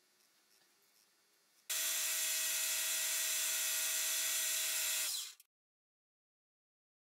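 Metal lathe running and turning a small brass thumbscrew: a steady machine hum with hiss, starting abruptly and cutting off after about three and a half seconds.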